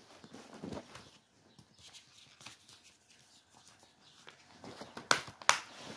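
Plastic Blu-ray case being handled and closed: faint rustling, then two sharp clicks near the end.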